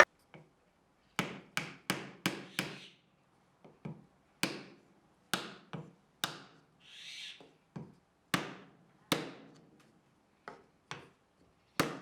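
Sharp hammer taps on wood and copper pipe, about sixteen separate strikes in short irregular runs with dead silence between, as copper pipe is knocked into place through holes in wooden bench stretchers.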